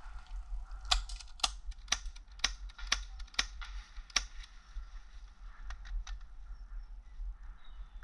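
Airsoft pistol firing a string of about seven sharp, snappy shots, roughly two a second, with a few fainter ticks after them.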